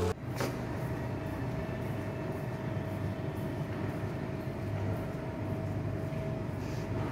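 Steady low hum and hiss of a large building's interior ambience, with a faint steady tone running through it.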